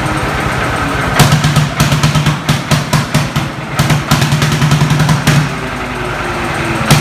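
Lanz Bulldog crawler tractor's single-cylinder two-stroke hot-bulb engine running. About a second in it breaks into loud, uneven exhaust bangs that go on for about four seconds before it settles to a steadier run.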